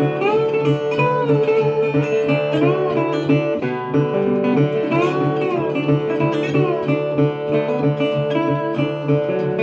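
Instrumental break of a folk song: acoustic guitar accompaniment under a lead line whose notes bend and slide in pitch.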